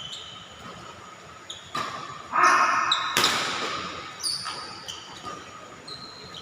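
Badminton rackets striking the shuttlecock in a rally: a few sharp hits, with a short loud burst near the middle and brief high squeaks, typical of shoes on the court, in between.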